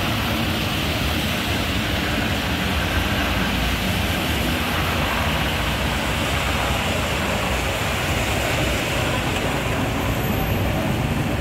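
V3A-93 articulated tram rolling along the rails up to the stop, heard as a steady low rumble with a hiss of street noise over it.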